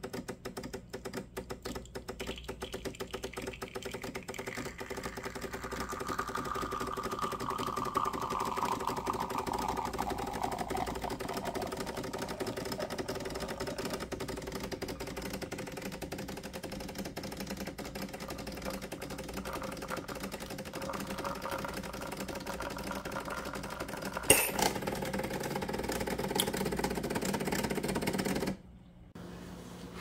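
Decent espresso machine's pump running through an espresso extraction, a steady fast mechanical buzz and hum. There is a single sharp click about 24 seconds in, and the pump cuts off shortly before the end as the shot finishes.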